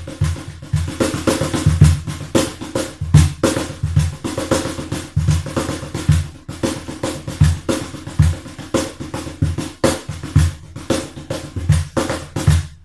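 Homemade cajon drum played by hand in a fast, steady rhythm, deep bass strokes alternating with sharp, bright slaps.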